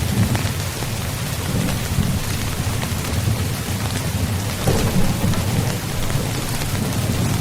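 Steady heavy rain with a continuous low rumble of thunder underneath, swelling slightly about five seconds in.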